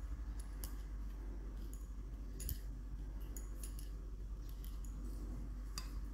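Scattered light metallic clicks and taps, about half a dozen, as the metal parts of an RTI Prophet 2 air rifle are handled during reassembly, over a steady low hum.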